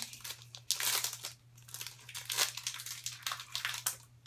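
A trading-card booster pack's wrapper crinkling in irregular crackles as it is handled and torn open. A steady low hum sits underneath.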